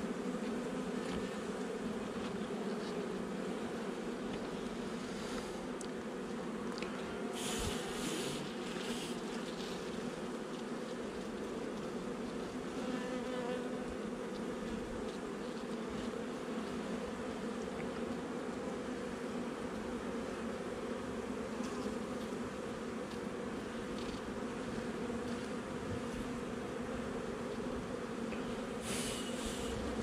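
Honeybees buzzing in a steady, dense hum. A few brief rustles or clicks come about eight seconds in and again near the end.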